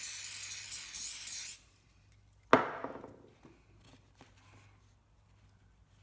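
Aerosol can of super glue (CA) accelerator sprayed in one hiss of about a second and a half onto a nylon strap being glued down. About a second later there is a single sharp knock as the can is set down on the wooden workbench, then faint handling of the strap.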